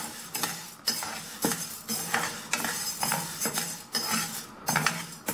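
Stainless steel ladle scraping and stirring whole urad dal as it dry-roasts in a ceramic-coated frying pan. The lentils rattle against the pan with each stroke, about two strokes a second.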